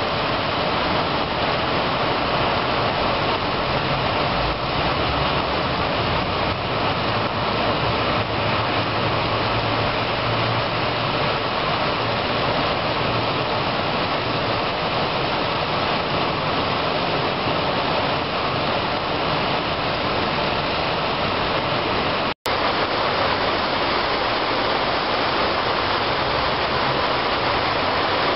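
Heavy rain pouring down in a steady, dense hiss. The sound cuts out for an instant about two-thirds of the way through, then carries on the same.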